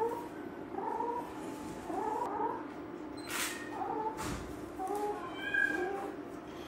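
Kitten making a string of short, chicken-like clucking calls, roughly one or two a second. The vet puts the sound down, most likely, to its dilated oesophagus pressing on the larynx and trachea.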